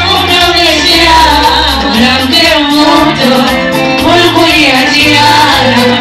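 Music with a singing voice over a bass line.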